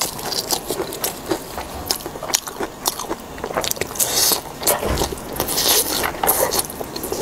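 Close-miked biting and chewing of crispy food: irregular crunches and crackles with wet mouth sounds, the loudest crunches about four and five and a half seconds in.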